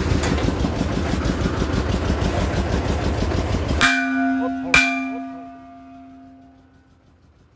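A borewell drilling rig's engine runs steadily and stops abruptly. Two hammer blows about a second apart then strike the hanging steel casing pipe, which rings like a bell and fades away over a couple of seconds.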